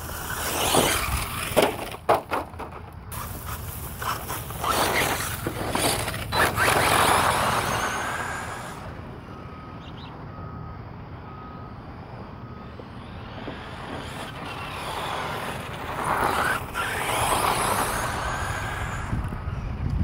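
Redcat Terremoto 10 brushless 4x4 RC truck running fast passes on grit and gravel, its tyre and drivetrain noise swelling and fading three times as it comes near and goes away. There are a few sharp clicks about two seconds in, and a quieter lull in the middle.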